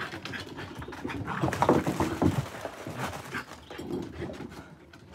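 A Scottish Terrier puppy and a second puppy play-fighting: panting and small dog noises, with scuffling and claw clicks on the wooden deck.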